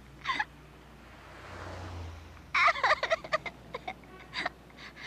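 A cartoon voice making rapid, choppy gobble-like cackling sounds, starting about halfway in, after a short squawk and a soft rising whoosh.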